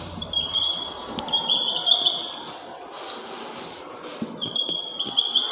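Marker pen squeaking across a whiteboard in short, high strokes as words are written. The squeaks come in two spells, one over the first two seconds and another near the end, with a quieter pause between.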